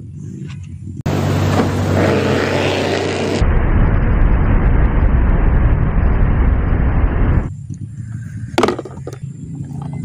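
Offshore racing powerboat running at speed across waves: loud engine noise mixed with rushing wind and water, starting about a second in and cutting off sharply about two and a half seconds before the end.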